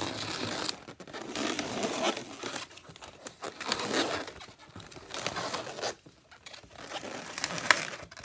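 Inflated latex twisting balloons, a geo and a long 260, rubbing and squeaking against each other and against the hands in irregular bursts as they are bent and twisted into a fish's rear fin, with one brief sharp sound near the end.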